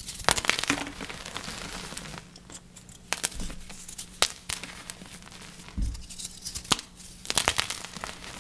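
Dyed gym chalk blocks being crushed, crunching and crumbling in several clusters of sharp crackly snaps with quieter gaps between them.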